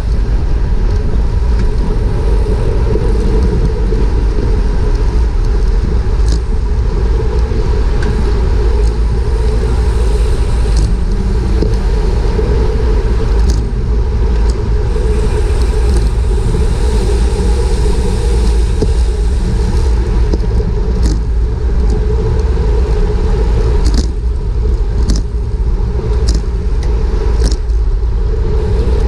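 Steady wind and road rumble from riding at racing speed on a bicycle, picked up by an action camera's microphone, with a few short sharp clicks, several of them near the end.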